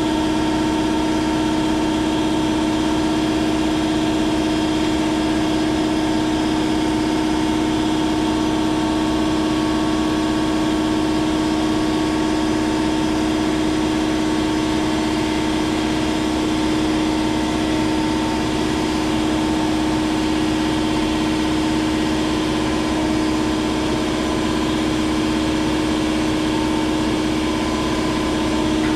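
Electric drill running at a steady speed, turning a Rescue Bit reamer bit to drill out a broken cobalt drill bit stuck in a snapped bolt. A continuous motor hum at one even pitch.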